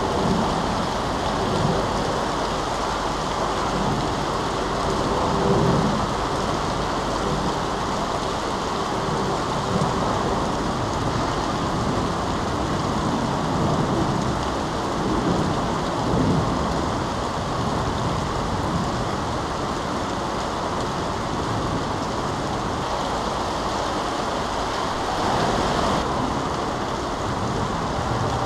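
Steady heavy rain with floodwater running through a flooded city street, making a continuous hiss. Low swells in the sound come and go every few seconds.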